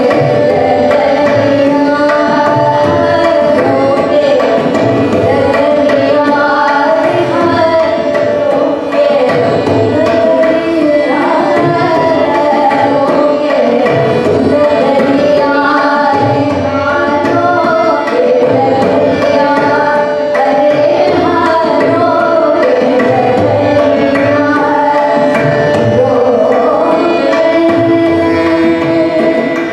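Hindustani classical vocal music: a woman singing a bandish with tabla keeping a steady rhythm, over a held drone.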